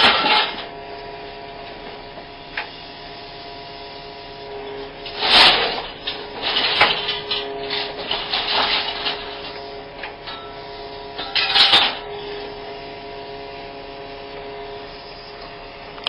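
Small hydraulic scrap shear on an excavator working a heap of scrap metal: the machine runs steadily with a constant hum, broken by loud bursts of scrap scraping and clattering a little after five seconds, near seven, around eight to nine and near twelve seconds.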